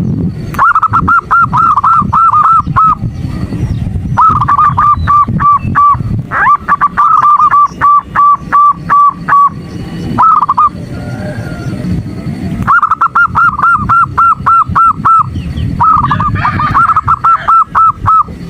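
Female zebra dove (perkutut) calling in rapid runs of short, evenly repeated notes, about four or five a second, in bursts of a few seconds with brief pauses between. It is the female's call used to lure and excite male perkutut into singing.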